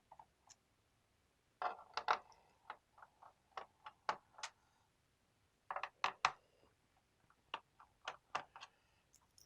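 Irregular clicks and taps of a screwdriver and small screws against a laptop's plastic bottom case as the case screws are taken out, with a quick run of clicks about two seconds in and another about six seconds in.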